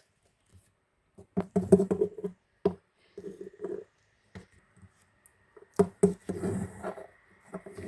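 Plastic Lego pieces being handled and knocked together: several sharp clicks and taps, with short mouthed noises in between.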